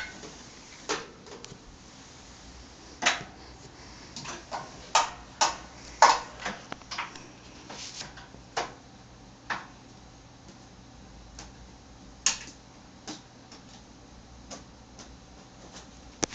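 Small plastic Buzz Lightyear toy knocked and tapped against metal and plastic furniture. A dozen or more sharp clicks come at irregular intervals, thickest in the first ten seconds and sparser after.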